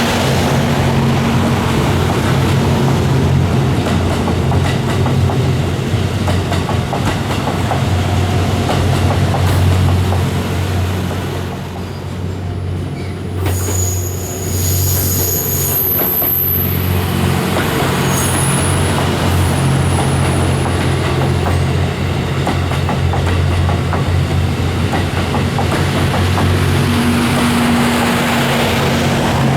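JR West Series 87 Twilight Express Mizukaze, a diesel-electric hybrid train, passing: a steady low engine hum with the noise of the wheels running on the rails. The sound drops briefly about twelve seconds in, then picks up again.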